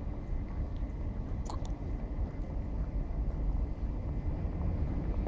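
Wind rumbling on the microphone over faint outdoor street ambience, with a couple of light clicks about a second and a half in.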